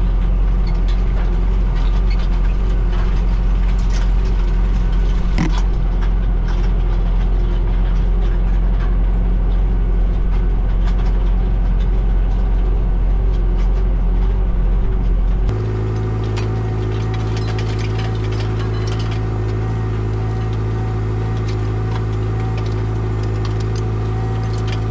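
Massey Ferguson 5445 tractor engine running steadily under load while pulling a rototiller through loose soil, heard from inside the cab. About two-thirds of the way through the sound changes suddenly to a slightly quieter, steady engine note heard from behind the tractor, over the rototiller and crumbler roller.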